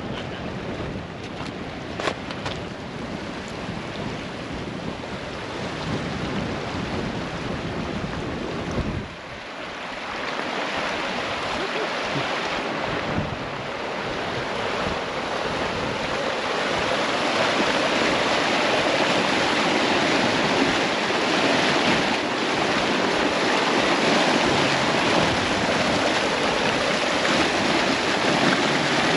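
Rushing floodwater, a steady churning hiss that grows louder through the second half, with wind buffeting the microphone in the first part.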